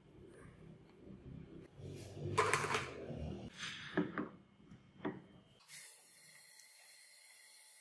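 Hand tool work on a small workpiece: a few irregular scraping and rubbing strokes, the loudest a little over two seconds in. Near the end it cuts abruptly to a steady faint hiss.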